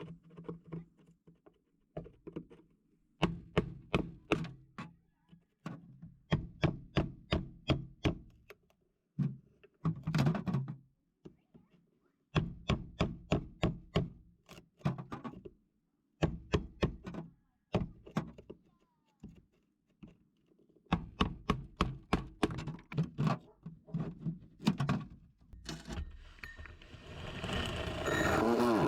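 Runs of sharp thunks, several a second, broken by short pauses. A rising noisy sound builds over the last few seconds.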